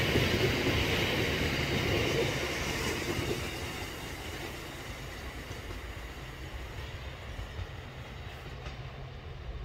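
Freight train of biomass hopper wagons rolling past close by. The sound drops away about four seconds in as the last wagons go by, leaving a quieter low rumble as the train moves off.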